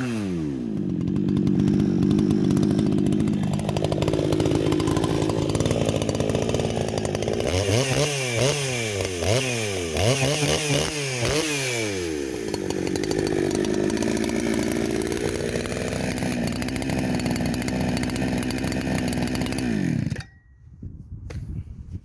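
Chainsaw running a 36-inch Husqvarna C85 chain filed into a milling (ripping) chain, under load as it cuts. The engine speed drops right at the start, swings up and down about four times midway, then the saw shuts off near the end. The reworked chain cuts with almost no push needed, only guiding.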